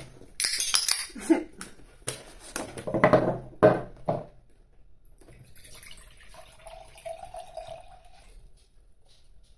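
Liquid sounds as a bottle of still (non-carbonated) kids' cola is opened and tasted, with a short hiss about half a second in.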